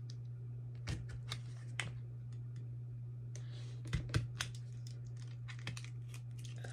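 Fingernails clicking and picking at a small plastic lip gloss tube while working it open, a scatter of irregular light clicks with a little crinkling of wrapping about halfway through. A steady low hum runs underneath.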